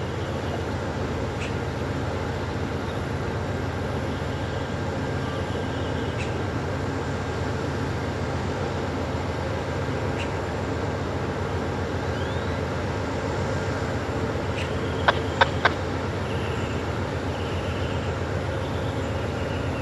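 Amtrak passenger diesel locomotive idling with a steady low throbbing rumble while the train waits to depart. Three sharp clicks come close together about fifteen seconds in.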